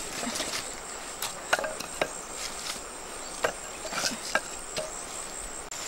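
Cut wooden sticks knocking against one another as they are laid in a pile: a handful of separate sharp wooden clacks, over a steady high insect drone.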